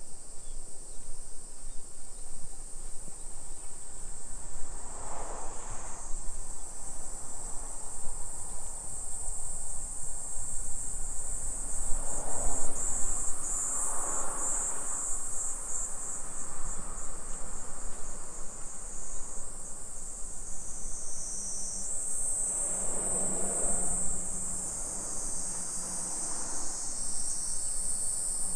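Insects chirring in a steady high-pitched drone.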